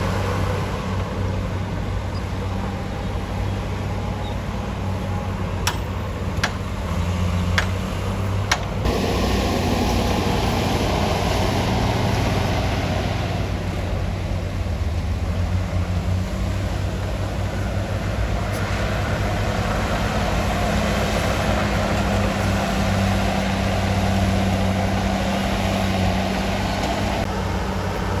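Heavy construction machinery's diesel engine running steadily under work, with four sharp knocks between about six and nine seconds in.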